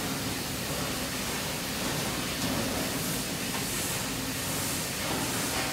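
Steady ambient noise of a large vehicle-factory workshop hall: an even hiss with a low steady hum running under it.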